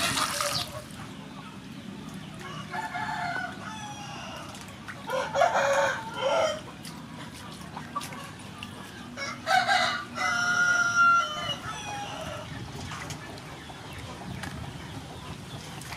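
Water splashing into a steel bowl for a moment at the start, then a rooster crowing three times, the first crow fainter and the second and third loud.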